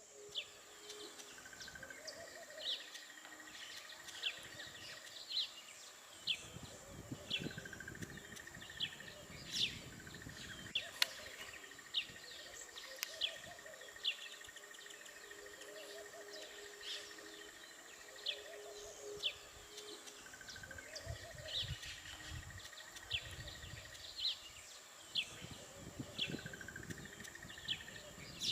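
Birds chirping in short, sharp calls about once a second, over a steady high-pitched insect whine and an insect trill that comes and goes.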